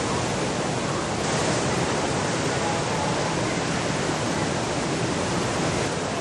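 Steady rushing of very large ocean waves breaking and whitewater churning.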